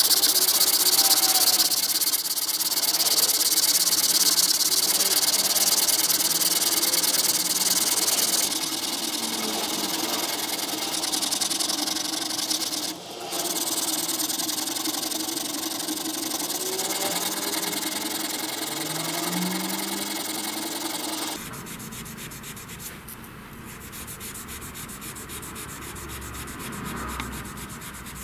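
Sandpaper rubbed rapidly back and forth over a wet brass hammer head: a steady, high, scratchy rasp. It changes abruptly about 13 seconds in and again about 21 seconds in, quieter after the second change.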